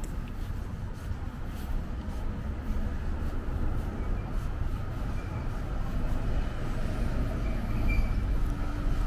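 Steady low rumble of a passing heavy vehicle, growing somewhat louder toward the end, with a few faint high squeals.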